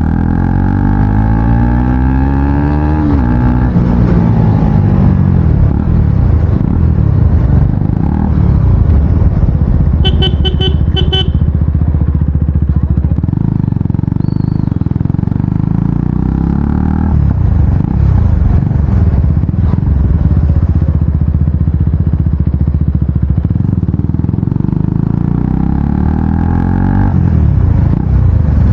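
KTM Duke 250's single-cylinder engine running loud with its exhaust muffler removed, revved up and down several times. A short burst of rapid high beeping about ten seconds in.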